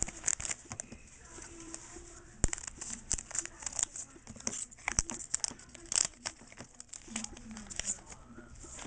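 Foil Pokémon booster pack wrapper crinkling and being torn open: an irregular string of sharp crackles and clicks.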